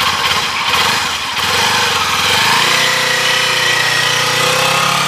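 Kawasaki Ninja 400 parallel-twin engine, close by. It pulses at low revs, then rises in pitch from about a second and a half in as the bike pulls away and holds higher revs.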